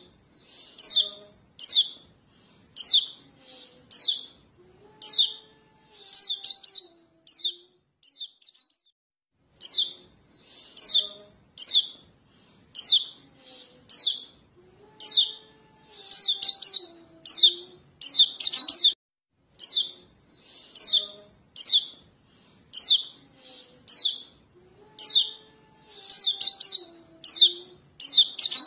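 Fledgling yellow white-eyes (kecial kuning) calling for their parents: short, high chirps repeated about once or twice a second. The sequence repeats about every ten seconds, a looped lure call.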